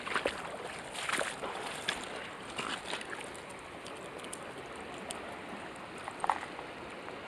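Fast river current rushing steadily over a gravel bank, with a few short sharp sounds over it.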